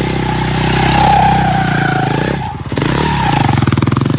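Motorcycle engine revving under hard riding. The note drops off briefly a little past the middle, then picks up again with a fast, rasping pulse.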